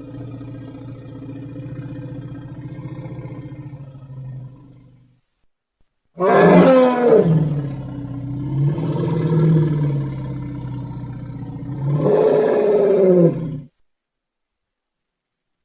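Woolly mammoth sound effect: a low, steady pitched call that fades out about five seconds in, then after a short silence a long, loud call whose pitch rises and falls, loudest at its start and again near its end before it cuts off.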